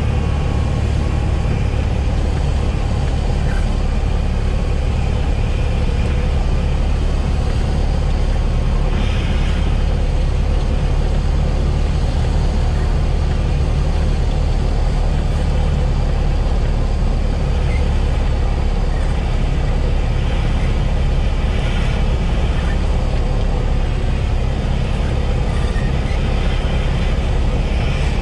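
Cessna 172S's four-cylinder Lycoming engine running at idle with a steady low drone, under a rush of wind over the airframe, heard inside the cockpit during a power-off glide on final approach.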